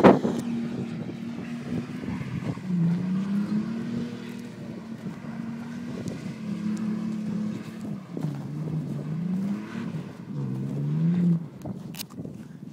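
Toyota Tacoma pickup's engine revving up and down again and again as the truck spins donuts on snow-covered lake ice.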